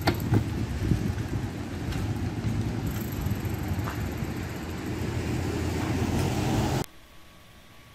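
Steady low rumble of city street noise with road traffic, with a few light clicks in the first second. It cuts off abruptly about seven seconds in, leaving a much quieter background.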